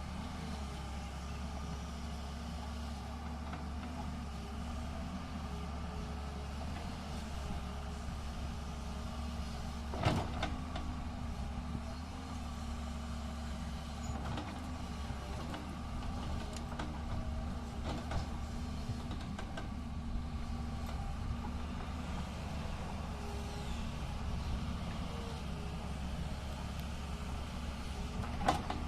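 Tata Hitachi excavator's diesel engine running steadily under work, with a sharp metallic knock about ten seconds in and another near the end.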